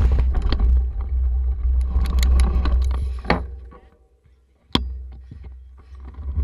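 A mountain bike rolling over a gravel track, heard through a bike-mounted GoPro Hero2: a steady low rumble with scattered rattles and clicks. The rumble drops away a little past halfway, then comes a single sharp click, and a fainter rumble returns.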